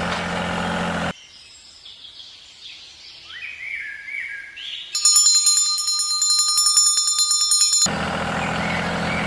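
A vehicle engine runs steadily and cuts off about a second in. Birds chirp for a few seconds. Then a loud electronic alarm beeps rapidly for about three seconds, and the engine sound comes back near the end.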